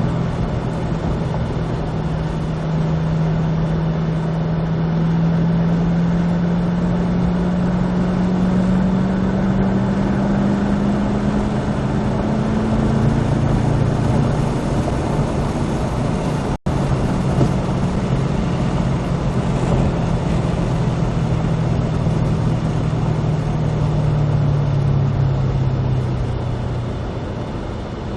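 Cadillac CT5-V Blackwing's supercharged V8 running under way, its note climbing slowly for about thirteen seconds, then falling to a lower pitch, as at an upshift, and sinking slowly before easing off near the end. The sound cuts out for an instant partway through.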